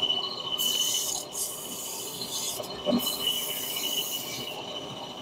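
Three long rasping strokes against metal, each lasting about a second or more, over a steady high-pitched whine.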